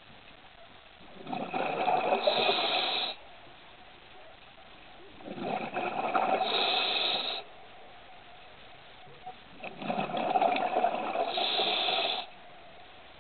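A scuba diver breathing through a regulator underwater: three loud, bubbling breaths of about two seconds each, roughly every four seconds, with a faint steady hiss between them.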